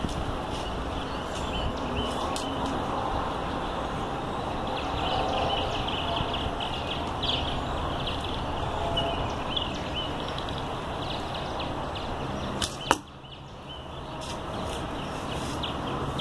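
A single shot from a homemade 35-pound PVC pipe bow about 13 seconds in: a sharp snap of the string as the light arrow is loosed and strikes the target, two cracks almost together, over steady outdoor background noise.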